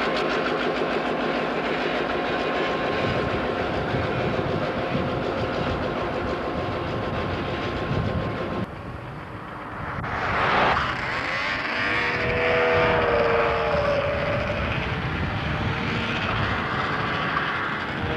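EMD GP7 diesel locomotive running past at close range, pulling passenger cars, with wheels clicking over the rail joints. It cuts off suddenly about halfway through. A road vehicle then whooshes by, and a locomotive horn sounds in a long blast for a grade crossing, with another starting near the end.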